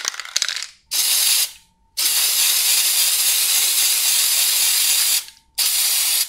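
Aerosol spray-paint can: a short rattle of clicks, then three hisses of spray. The first hiss is brief, the second lasts about three seconds and the third is brief, near the end. Each one stops sharply.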